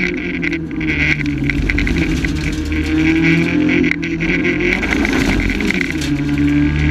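Rally-prepared Renault Clio's engine heard from inside the cockpit, running loud and hard on the stage, its note dipping briefly near the start and about four seconds in, then climbing again as the driver gets back on the throttle.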